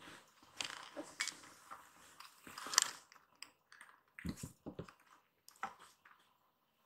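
Two kittens play-fighting on a corrugated cardboard scratcher: irregular scratching and scuffling of claws and paws on the cardboard, with a quick cluster of bumps about four seconds in.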